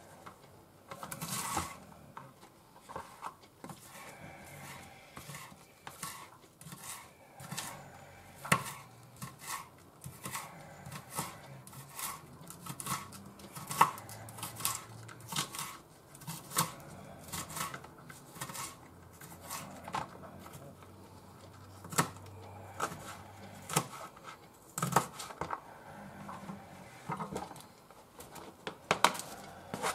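Kitchen knife cutting a cabbage leaf on a wooden cutting board: a run of irregular knocks of the blade on the board, some louder than others, with a faint steady hum beneath.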